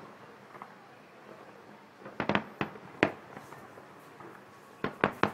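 Aerial firework shells bursting with sharp bangs. There is a quick volley of several about two seconds in, a single loud bang about a second later, and another rapid volley near the end.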